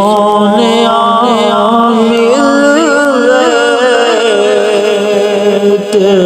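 Male voice singing a Sufi kalam: a long, wavering melisma held without words over a steady low drone.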